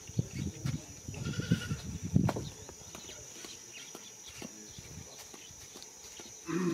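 A farm animal bleating briefly about a second and a half in, and again near the end, over low rumbling and faint clicks.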